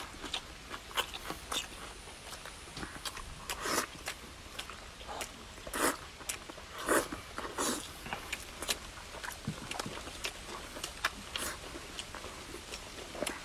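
A person eating noisily: irregular wet chewing and lip-smacking clicks, with a few louder, longer mouth sounds such as bites or slurps about four, six and seven seconds in.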